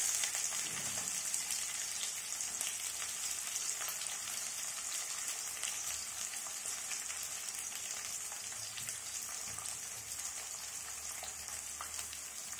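Sliced onion just added to hot oil in a karahi, sizzling steadily with fine crackles, easing off slowly.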